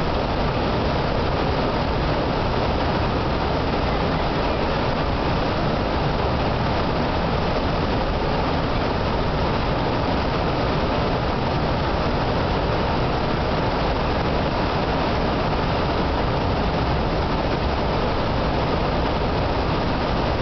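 White water of the Temperance River's lower falls rushing down a narrow rock gorge: a loud, steady rush of water that does not change.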